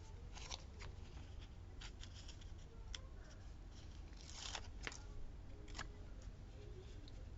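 Faint paper handling: light rustles and small taps from sticker sheets and a planner page being moved, with a slightly longer, louder rustle about four and a half seconds in.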